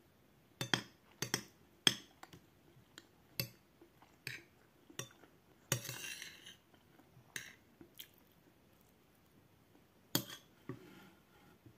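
A metal spoon clinking and scraping against a plate of food in a string of sharp, separate knocks, with one longer scrape about six seconds in, and chewing in between.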